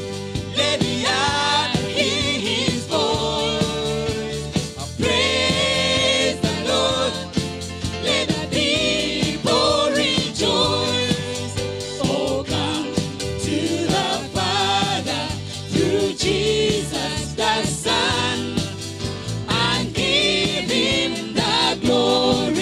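Worship band singing a gospel hymn: several voices on microphones over keyboard, electric guitar and drums.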